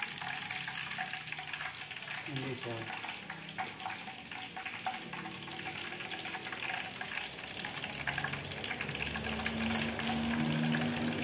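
Steady crackle of breaded chicken frying in hot oil. Near the end there are a few sharp clicks of a metal fork against a stainless steel pot.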